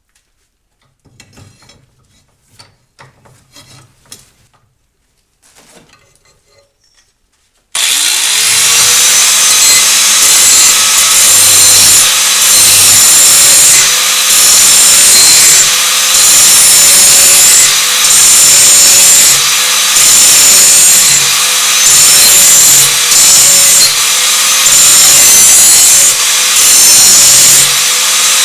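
A power grinder switches on about eight seconds in, its whine rising as it spins up, then grinds the edge of a steel lawnmower mulching blade in repeated strokes with a short dip between strokes every second or two. Before it there are only faint handling clicks.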